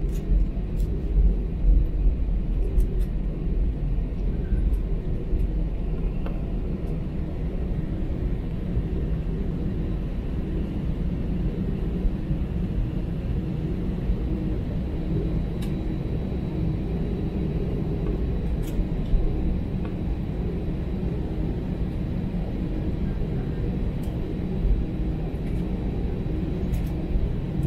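Cabin noise of an Airbus A320 taxiing: its CFM56-5B engines running at taxi power with a steady low rumble from the wheels rolling over the runway, and a few faint clicks.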